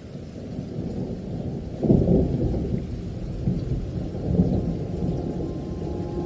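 Thunderstorm: a deep rolling rumble of thunder over rain, loudest about two seconds in with a second, smaller swell near four and a half seconds.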